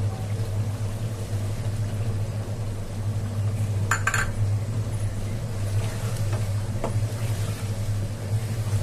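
A steady low hum throughout, with a quick pair of metal clinks from a utensil against the cooking pot about four seconds in as yogurt is added to chicken pieces; near the end a spoon stirs the chicken and yogurt in the pot.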